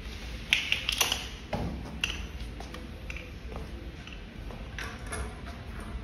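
Hands working the ebike's front fork and small parts on a concrete floor: a quick cluster of sharp plastic and metal clicks and clatter about half a second in, a duller knock around a second and a half, then a few light ticks of handling.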